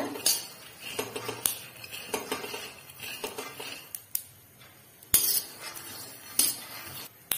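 A slotted steel spatula scraping and clinking against a kadhai while dry-roasting raw peanuts, the nuts rattling as they are turned. The strokes are irregular, with a few sharper knocks about five and six and a half seconds in.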